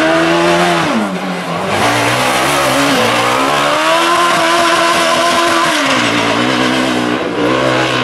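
Dakar rally-raid buggy's engine at high revs as it powers through a dirt corner. The pitch drops about a second in as the throttle comes off, climbs again and holds, then falls near the end.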